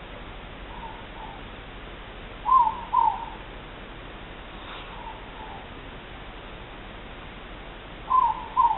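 Two moreporks (ruru) calling in turn, each call a two-note "more-pork" hoot. Four calls in all: two faint ones alternate with two loud ones, every two to three seconds.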